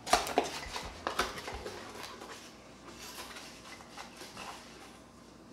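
Paper packaging being handled and unfolded, with a burst of crinkling right at the start, another about a second in, then lighter scattered rustles.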